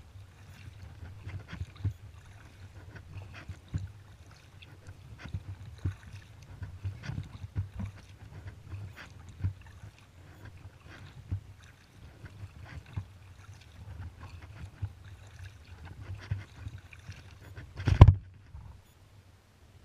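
Kayak paddling: irregular small splashes and drips from the paddle blades over a low rumble of water against the hull. One loud knock near the end.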